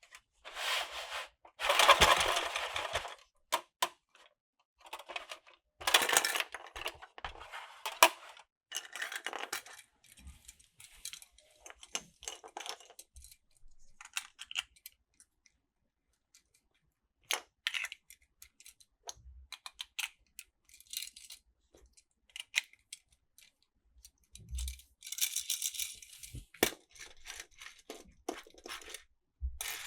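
Plastic toy train track and toy minicars clattering and clicking as they are handled, in irregular bursts with short pauses.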